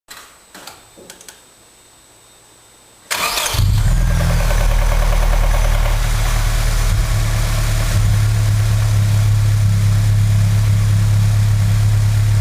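Nissan SR20DE 2.0-litre four-cylinder engine starting: a few clicks, a short burst of cranking about three seconds in, then the engine catches and idles steadily. This is the engine the owner says makes a strange, bad noise.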